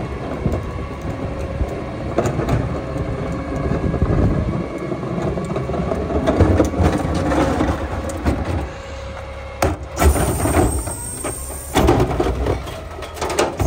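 Autocar garbage truck's engine running steadily while its carry can's hydraulic cart tipper works, with knocks and rattles of a plastic cart. About ten seconds in, a high hiss lasts about two seconds as the tipper lifts a cart and dumps it, followed by sharp bangs.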